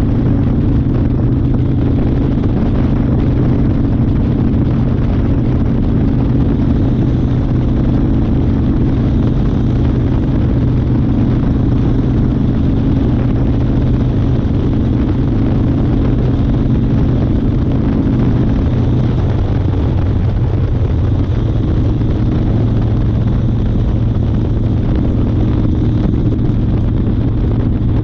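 A 1992 Harley-Davidson Fat Boy's Evolution V-twin engine running steadily under way, over a constant rush of noise. The engine note blurs and shifts pitch about two-thirds of the way through, then settles again.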